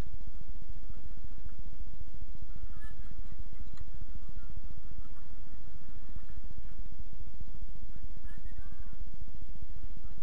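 Trabant two-stroke twin-cylinder engine idling steadily, heard from inside the race car's cabin, with faint voices outside.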